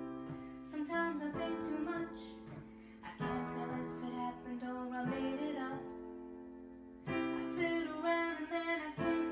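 A woman singing while playing chords on a keyboard piano; new chords are struck about three and seven seconds in, each ringing and fading.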